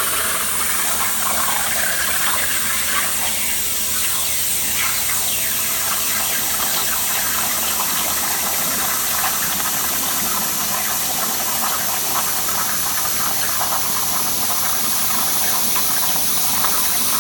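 CNC plasma cutter running, a loud steady hiss with faint crackling from the plasma arc and its air stream.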